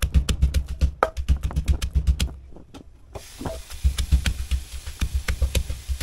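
Wooden pestle pounding garlic and red chillies in a clay mortar: rapid, steady thuds, about six a second, with a short break a little before halfway.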